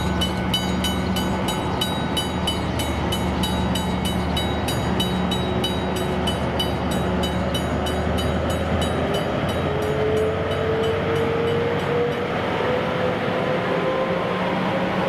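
A McKenzie & Holland teardrop level-crossing bell rings fast and evenly, about three strikes a second. The diesel locomotives of an approaching freight train grow louder, with an engine tone rising in pitch. The locomotive noise drowns the bell as the train reaches the crossing near the end.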